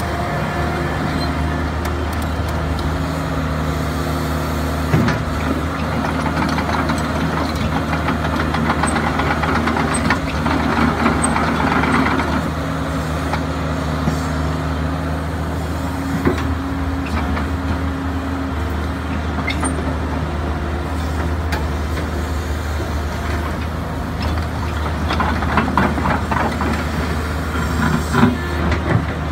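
JCB JS130 hydraulic excavator's diesel engine running steadily as the machine slews and swings its boom and bucket. The sound grows busier and louder for a couple of seconds about ten seconds in and again near the end, with a few sharp knocks.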